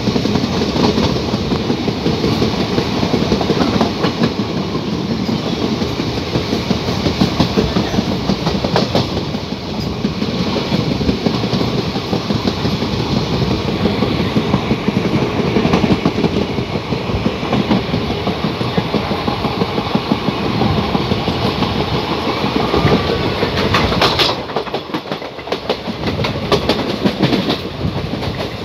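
Train running along the line, heard from inside the coach: a steady rumble of wheels on rail with clickety-clack and a few sharper knocks as the wheels cross rail joints.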